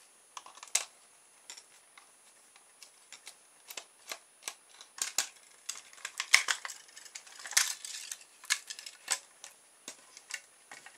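Irregular small clicks and taps of a screwdriver and hard plastic as a toy radio-controlled car's body screws are undone and its plastic shell is taken off the chassis. The clicking is busiest in the middle.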